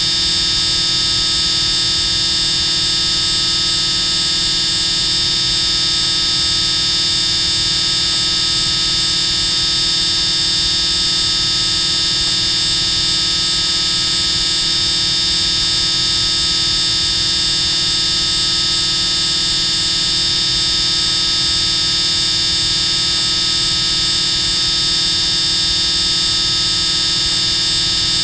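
A loud, continuous buzz that holds perfectly steady without a break, with a harsh, high-pitched edge.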